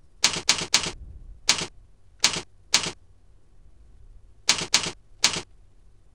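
Keystrokes typed on a computer keyboard: about nine separate sharp clacks in irregular groups, three close together at the start, then single and paired ones, as a username and password are entered.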